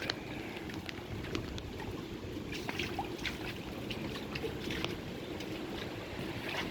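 Floodwater from a river over its banks flowing with a steady rush, with faint scattered ticks.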